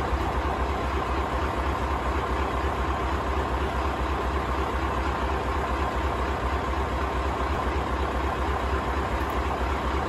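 Scania LBS141's 14-litre V8 diesel engine idling steadily, a deep even rumble that holds unchanged throughout.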